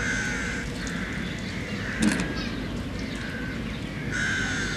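Crows cawing several times, short harsh calls, over a steady background hiss.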